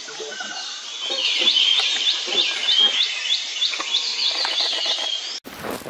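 A small bird chirping, a quick series of high, hooked chirps about three a second over outdoor background noise. The sound cuts off abruptly near the end into a different, noisier recording.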